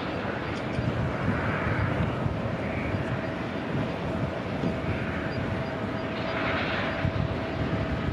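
Twin-engine jet airliner at takeoff thrust on its takeoff roll, heard from a distance as a steady rush with a low rumble.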